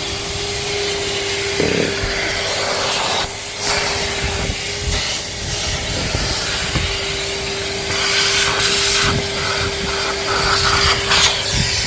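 Vacuum cleaner running with a steady hum, its nozzle rubbing and scraping over surfaces, with louder scraping bursts about eight seconds in and again near the end.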